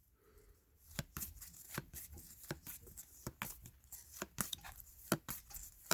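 Trading cards being handled and flipped through, a run of quick, irregular clicks and snaps starting about a second in.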